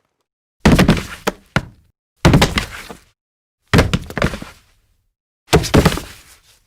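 Body-fall sound effects: four separate heavy thuds of a body hitting the ground, each a quick cluster of impacts that dies away within about a second, with silence between them.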